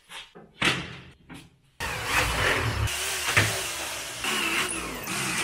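Cordless Ryobi drill running steadily from under two seconds in, driving a screw up into the skate box's top from below, with a sharp click partway through. A few short knocks and scrapes come before the drill starts.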